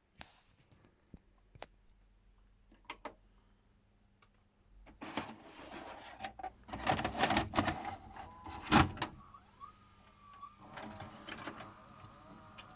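NEC VN-405 VHS video cassette recorder's tape mechanism: a few clicks, then motor whirring and clicking as a cassette is loaded and threaded, with one loud clunk about nine seconds in. A steady tone follows near the end.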